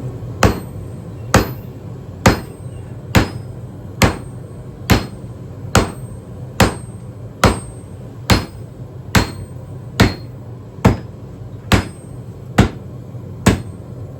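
Steady, evenly paced hammer blows on hot steel at the anvil, about sixteen strikes a little more than one a second, each with a short ring, over a steady low hum. A large steel wrench is being forged into an axe head.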